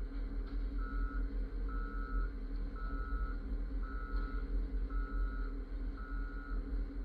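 Wheel loader's back-up alarm beeping about once a second at a single high pitch, over the steady low running of its diesel engine.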